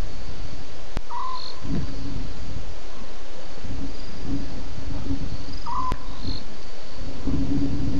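Night insects, crickets, trilling steadily, with a short call heard twice about five seconds apart, over a low steady hum and background noise.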